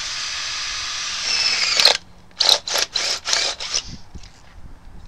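Cordless drill with a step bit boring through the top of an aluminium beverage can: the motor runs steadily for about two seconds, rising in pitch and loudness near the end as the bit cuts, then stops abruptly. Five short rasping bursts follow over the next second and a half.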